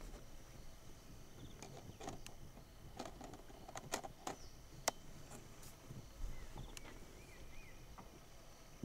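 Quiet forest ambience: a steady high insect drone, a handful of sharp clicks around the middle, and a short warbling bird call about six and a half seconds in.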